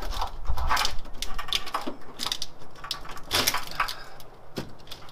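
Irregular clicks, knocks and short scrapes of parts being handled by hand on an LS1 cylinder head. A low rumble runs under the first second.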